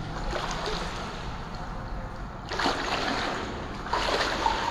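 Water sloshing and splashing, with two louder rushing surges about two and a half and four seconds in.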